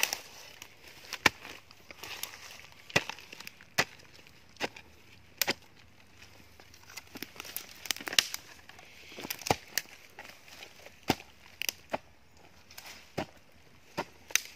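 A hand hoe striking into soil and dry roots again and again as a planting hole is dug. There are about a dozen sharp, irregular chops roughly a second apart, with dry leaf litter rustling between them.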